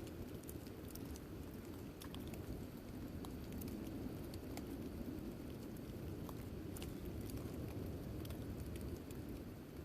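Steady rain falling, with scattered sharp ticks of drops striking a nearby surface.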